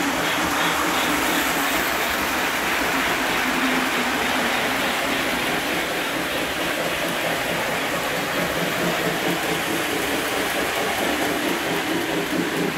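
Several Lionel O-gauge model trains running on their metal track: a steady rolling rumble and clatter of wheels and motors.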